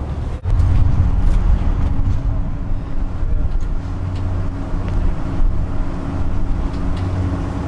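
Machinery running with a steady low drone that starts abruptly about half a second in.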